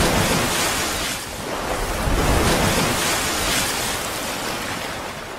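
Sound effect of rushing, splashing water: a loud, noisy wash that surges a few times and eases off toward the end.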